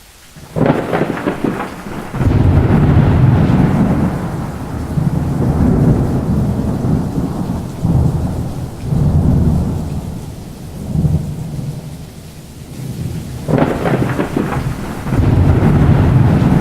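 Thunderstorm: rolling thunder over steady rain, the rumble starting about half a second in and swelling and easing several times, with a fresh loud roll near the end.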